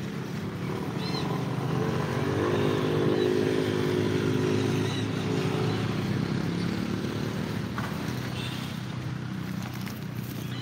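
A passing motor vehicle's engine running steadily. It grows louder over the first few seconds and then slowly fades.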